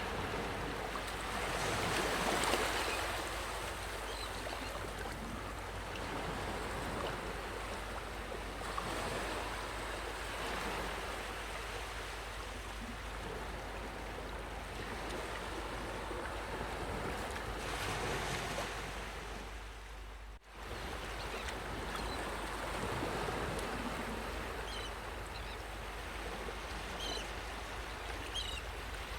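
Ocean waves washing onto a beach, a continuous surf noise that swells about two seconds in and again around eighteen seconds. The sound drops out for a split second about twenty seconds in.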